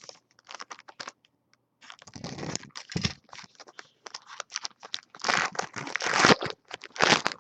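A trading-card pack being torn open and its cards handled: irregular crinkling and tearing of the wrapper with scratchy card-handling noise, in clusters that are busiest about two seconds in and again from about five seconds.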